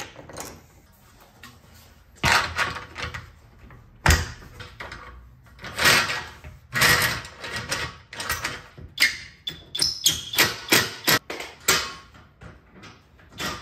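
Clicks, knocks and metal clatter of solar-mounting hardware being fitted by hand: a saddle fastened onto a mounting foot and an aluminium rail set into its brackets. There is a sharp heavy knock about four seconds in, and a denser run of quick clattering over the last few seconds.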